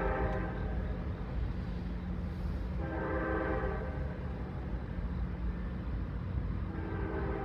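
Distant diesel locomotive air horn sounding short chord blasts of about a second each: one ending just after the start, another about three seconds in, and a third beginning near the end.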